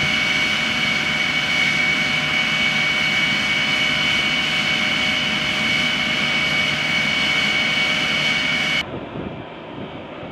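Jet engine running steadily on the flight line: an even, loud whine with two high steady tones over a rushing noise. Near the end it cuts off suddenly, and a much quieter, more distant aircraft rumble follows.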